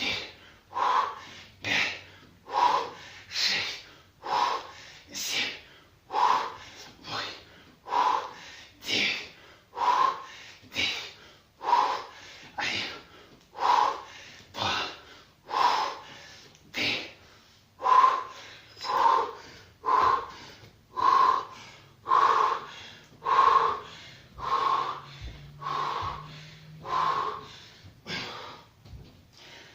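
Hard, wheezing breaths of a person squatting with a heavy kettlebell, a sharp breath about once a second in a steady rhythm that follows the repetitions.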